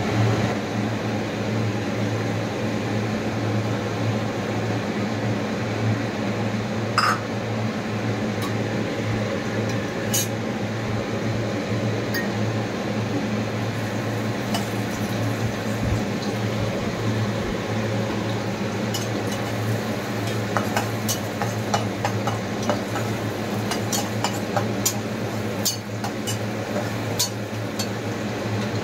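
Sliced onions frying in oil in a frying pan, stirred with a metal spatula that scrapes and taps the pan, over a steady low hum. The clicks and taps come more often in the second half.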